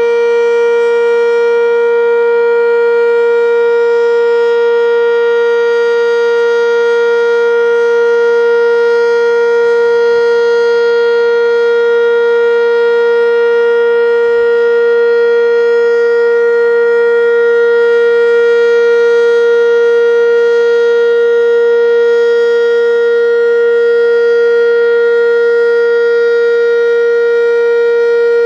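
Sentry 10V outdoor warning siren sounding loud, holding one steady pitch without rising or falling.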